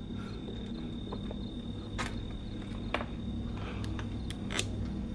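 Crickets trilling in one steady high tone over a low rumble of background noise, with a few short sharp clicks spread through.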